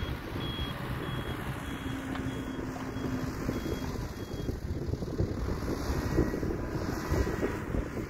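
Mecalac 12 MXT wheeled excavator running and driving, its diesel engine rumbling steadily, with the reversing alarm beeping about every two-thirds of a second until it stops about halfway through while the machine backs up.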